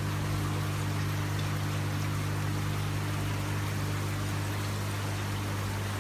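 Floor-standing waterfall fountain running: water sheeting down a glass panel and splashing into its reservoir, steady, with a steady low hum from the fountain's pump underneath.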